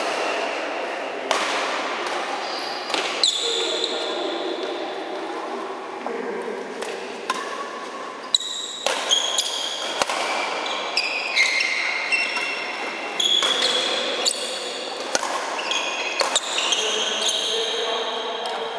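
Badminton rally in a reverberant sports hall: sharp racket hits on the shuttlecock and short high squeaks of shoes on the court floor, scattered irregularly throughout.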